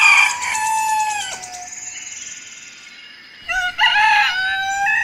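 Rooster crowing twice: one crow trails off about a second and a half in, and a second crow starts about three and a half seconds in.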